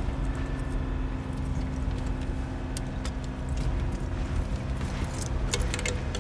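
Landing craft's engine droning steadily, with a few sharp metallic clicks near the end as a metal canteen's cap is worked open.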